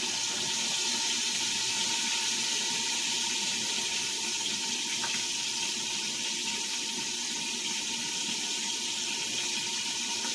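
Flour-dredged chicken livers frying in olive oil in a pan: a steady, even sizzle.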